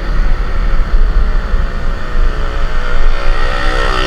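Scooter riding at speed: wind buffeting the microphone over the engine and road noise. Near the end a whine grows louder as the scooter pulls harder.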